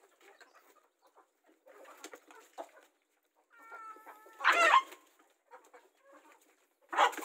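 Domestic hens clucking while feeding. A short held call comes just before the four-second mark and a louder call about half a second later, with another loud burst of clucking near the end.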